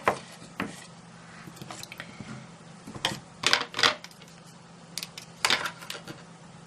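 Hands handling a cardstock gift box while fixing a small magnet with a glue dot in place: a scatter of short taps, clicks and rustles, the loudest cluster about three to four seconds in, over a faint steady hum.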